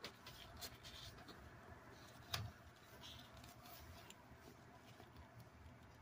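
Faint handling noise of plastic toy animal figures turned over in gloved hands: scattered light clicks and rubbing, with one sharper tap a little over two seconds in.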